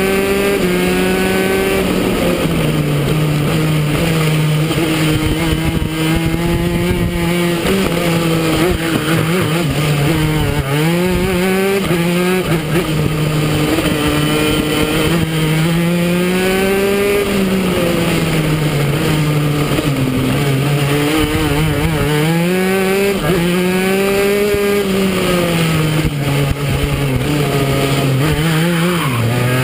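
Go-kart engine running hard through a lap, its pitch climbing on the straights and dropping back as it slows for the corners, several times over.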